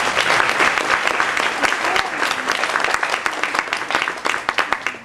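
Theatre audience applauding a song, a dense patter of clapping that thins out near the end.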